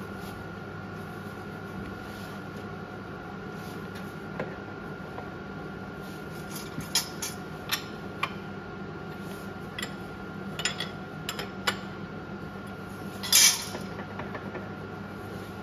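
Steel clamps, spanner and tooling clinking and knocking on a radial arm drill's cast table as the set-up is checked and tightened before reaming: scattered metallic clicks and clanks, the loudest about thirteen seconds in, over a steady workshop hum.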